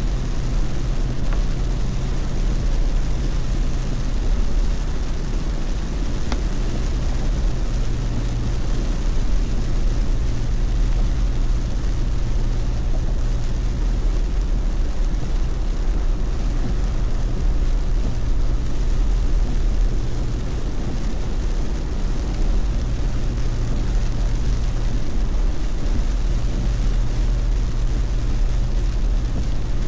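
Car driving at expressway speed in heavy monsoon rain: a steady low drone of engine and road noise under an even hiss of rain and tyre spray.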